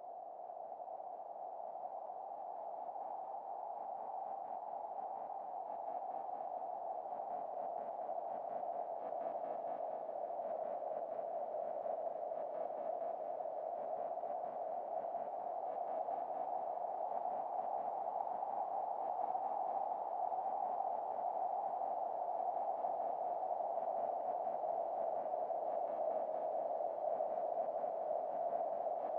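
A steady, hissy, mid-pitched drone, a narrow band of sound with no beat or melody, that swells slowly in level over the first several seconds and then holds; an ambient soundtrack laid over the video.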